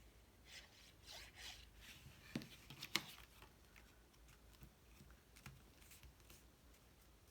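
Faint rustling and rubbing of cardstock as a paper box card is handled and folded closed, with two sharp taps of the card about two and three seconds in.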